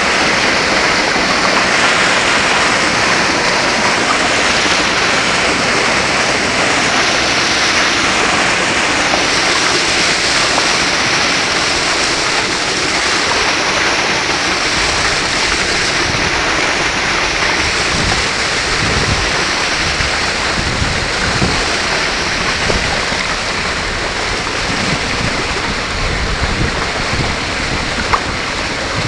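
Steady rush of water past a homemade bamboo kayak under way, mixed with wind noise on the microphone. Irregular low thumps come in during the second half, and there is one sharp knock near the end.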